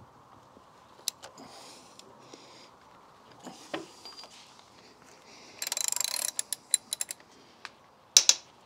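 Socket ratchet with an extension bar clicking as it is worked on a motorcycle engine-mount bolt. There are a few single clicks, then a fast run of clicks about six seconds in, a few more clicks, and a louder clack near the end.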